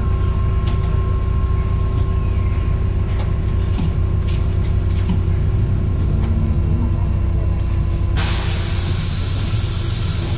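MAZ 203 city bus heard on board, its diesel engine rumbling with a steady whine from the ZF automatic gearbox. About eight seconds in, a loud hiss of compressed air from the bus's pneumatics starts abruptly and lasts about two seconds.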